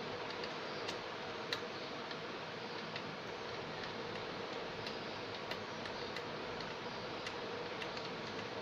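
Scattered light clicks and taps at irregular intervals over a steady hiss with a faint hum, the sound of small computer parts being handled and fitted.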